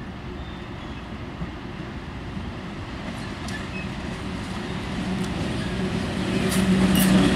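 Soviet VL10 eight-axle DC electric locomotive approaching with a freight train: a steady low hum over the rumble of wheels on rail, growing louder as it nears. From about three seconds in, sharp clicks of wheels striking rail joints and points.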